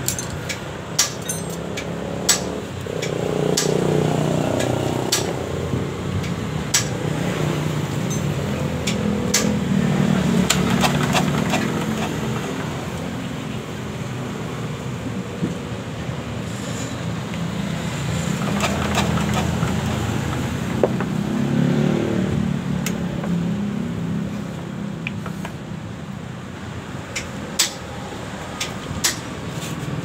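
Metal tools and engine parts clicking and clinking as a fuel injection pump is worked loose from a 186F air-cooled diesel engine, with sharp clicks scattered throughout. Under them a low rumble swells and fades about three times.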